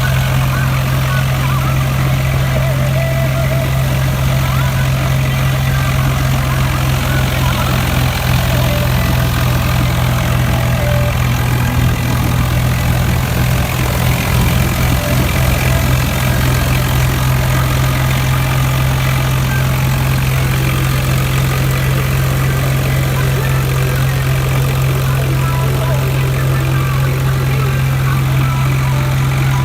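Swaraj 744 FE tractor's three-cylinder diesel engine running steadily, with an even low hum.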